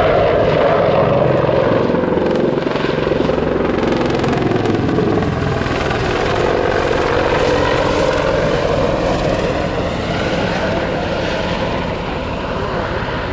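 Boeing AH-64 Apache attack helicopter in flight: the rapid, steady beat of its four-bladed main rotor over its twin turboshaft engines. The sound eases off a little near the end as it banks away.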